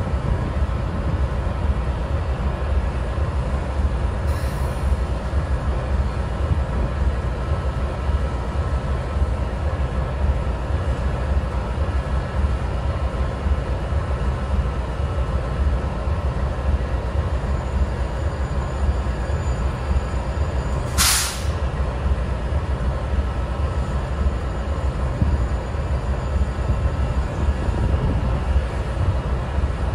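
GE Dash 9-44CW diesel locomotive idling with a steady low rumble. A brief hiss cuts in once about two-thirds of the way through.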